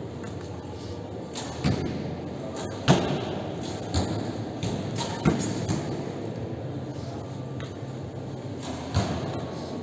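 Archers' bows being shot: several sharp string snaps and arrow thuds at irregular intervals, the loudest about three seconds in, over the steady background noise of a large hall.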